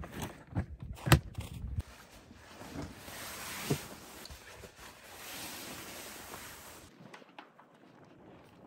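A plastic storage box being handled, giving a few sharp knocks, the loudest about a second in, then a soft rustle of blankets and bedding being spread on a camp cot.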